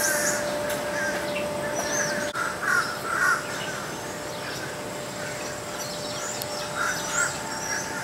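Outdoor bird calls: several harsh, caw-like calls, loudest about three seconds in and again near the end, over the steady chirping of smaller birds, with a faint steady hum underneath.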